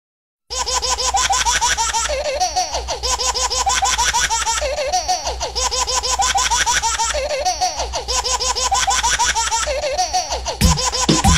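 Looped baby laughter over background music with a steady beat, the same giggling phrase coming round about every two and a half seconds. It starts abruptly about half a second in, and deep thumps join near the end.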